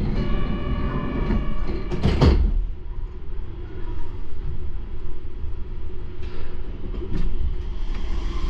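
Door chime tones sound on a Yurikamome rubber-tyred automated guideway train, then the sliding doors shut with a thump about two seconds in. The train's low steady hum follows.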